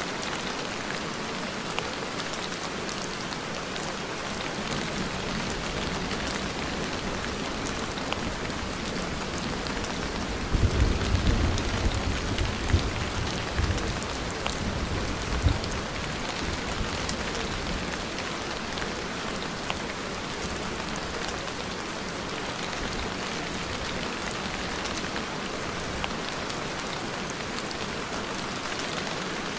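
Steady rain, an even hiss of falling drops. A low rumble comes in about ten seconds in and lasts several seconds.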